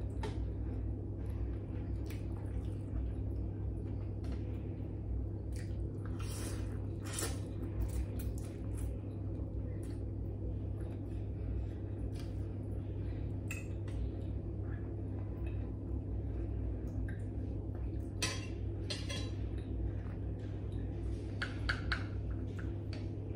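Someone eating noodles: a spoon and fork clinking and scraping against a ceramic bowl and plate, with a few brief slurps, over a steady low hum.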